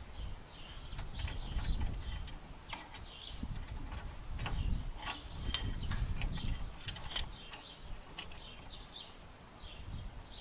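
Irregular metallic clicks and clinks of small gears and parts being handled and worked into the front axle of a John Deere 2320 compact tractor. Low knocking and rubbing of handling runs under them.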